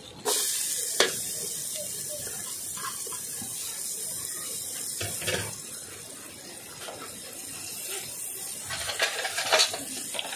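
A pot of crabs in coconut milk bubbling over a wood fire: a steady hissing and bubbling that comes in abruptly just after the start, with a few sharp clicks, a cluster of them near the end.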